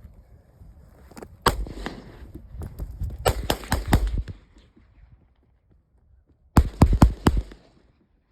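A Glock 19 9mm pistol being fired rapidly in a magazine dump. A first shot is followed by a quick run of shots, then after a pause of about two seconds a fast string of about five more.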